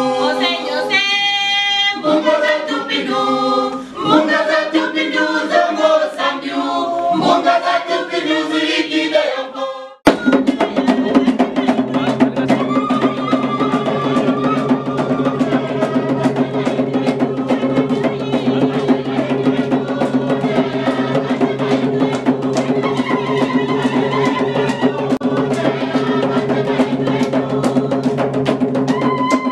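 A group of voices singing unaccompanied, then, after an abrupt cut about ten seconds in, a fast, even beat on hand-played wooden drums with voices over it.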